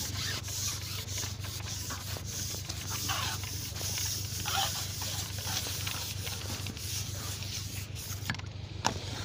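Light rubbing and small taps from a fishing pole being handled, over a steady low hum, with one sharp click near the end.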